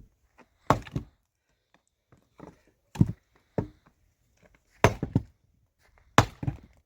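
Wood being chopped: about six sharp strikes at uneven intervals, two of them in quick succession.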